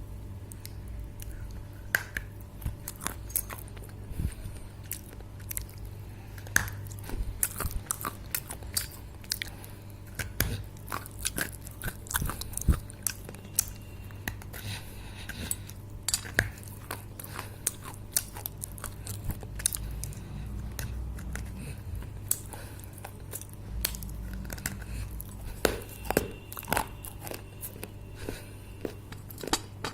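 Dry clay crunching and cracking: a steady run of sharp, irregular crunches, several a second, some louder than others.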